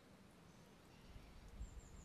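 Near silence: faint woodland ambience, with a short, high bird chirp near the end and a low rumble in the second half.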